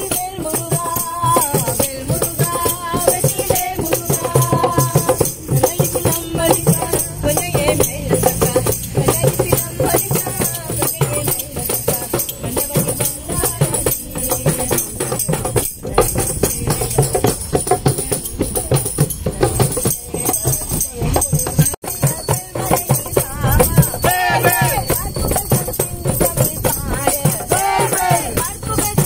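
Devotional procession music: voices singing over a busy, rapid rattling of hand percussion, the singing clearest near the end.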